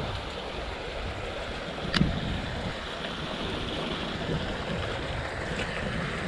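Wind buffeting the microphone over a steady outdoor hiss, with one sharp knock about two seconds in.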